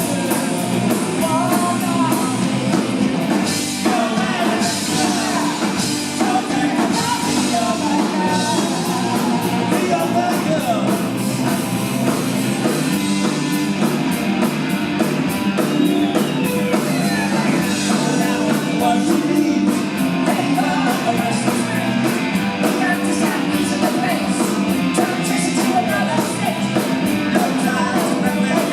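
Live punk rock band playing a fast song, with sung vocals over guitars and drums.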